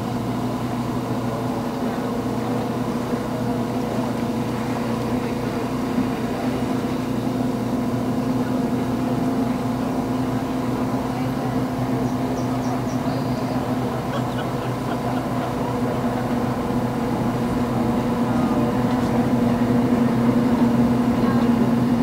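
Racing outboard hydroplanes' two-stroke outboard engines running flat out with a steady pitch, growing louder in the last few seconds as one boat comes closer.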